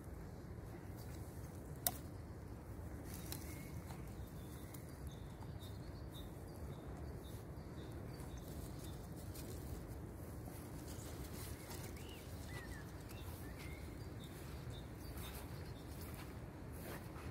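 Quiet outdoor meadow background: a steady low rumble, with a few faint, short bird chirps, most of them past the middle. A single sharp click comes about two seconds in.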